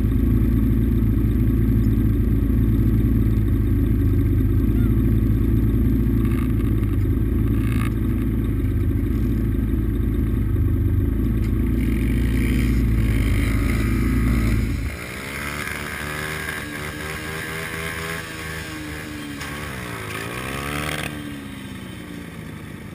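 Dirt bike engine idling steadily close to the microphone, cutting off about two-thirds of the way through. After that, a smaller dirt bike engine nearby is heard revving up and down.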